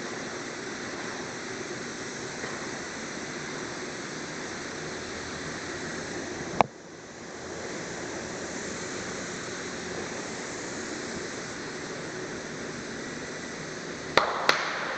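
Steady rushing background noise, with a sharp click about six and a half seconds in and two quick clicks near the end as the metal parts of a homemade chain press are handled.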